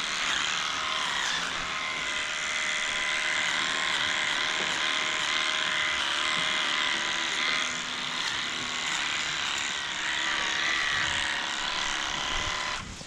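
Electric clippers buzzing steadily as they trim the hair of a cow's tail switch, the pitch wavering slightly under load. The buzz stops shortly before the end.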